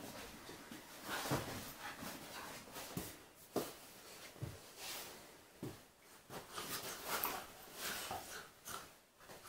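Golden retriever and Labrador puppy playfighting: short, irregular bursts of dog breathing and scuffling on the carpet.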